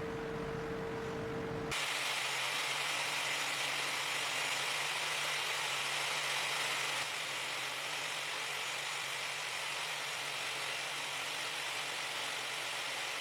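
A steady hum with a held tone cuts off suddenly about two seconds in and gives way to an even, steady hiss, which drops slightly in level about seven seconds in.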